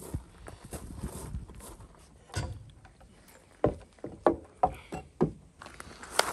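A string of sharp wooden knocks as a cart's shaft is handled and set down on wooden deck boards, irregularly spaced and mostly in the second half.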